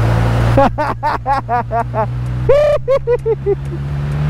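Kawasaki Z900 inline-four engine running steadily at low speed, with the wash of floodwater around the wheels. About half a second in, a voice starts a quick run of about a dozen short high-pitched cries, which ends about three and a half seconds in.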